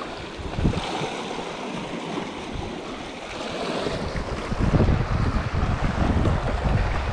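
Sea washing and splashing against rocks, with wind buffeting the microphone; the buffeting grows heavier about halfway through.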